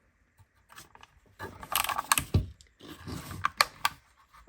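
Small plastic toy spaceship, the Jazwares Micro Galaxy Squadron Imperial Shuttle, handled and opened up to show the inside. There is rubbing and scraping of plastic, with several sharp clicks and snaps, most of them in the second half.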